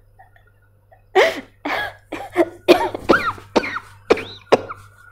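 A woman coughing in a fit of about ten short, harsh coughs that start about a second in and come faster toward the end.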